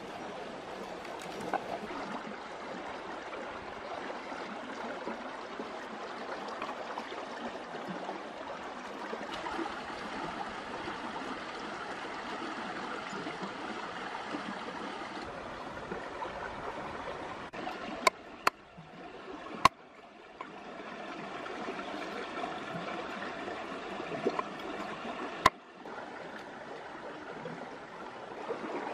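Stream water running steadily over rocks, with a few sharp clicks about two-thirds of the way through and once more later.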